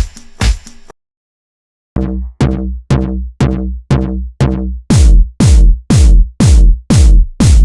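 Electronic drum-machine beat of repeated strikes about twice a second, each sliding down in pitch. It breaks off for about a second just after the start, then returns and grows louder with a heavy bass from about five seconds in.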